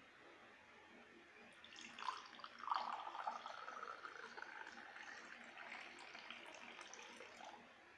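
Lemon juice poured in a thin stream into a tall drinking glass, starting with a splash about two seconds in and running until near the end, the pitch of the pour rising slowly as the glass fills.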